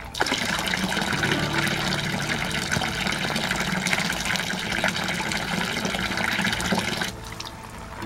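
A stream of water from a fountain spout splashing steadily into a stone trough full of water. The sound cuts off suddenly about seven seconds in.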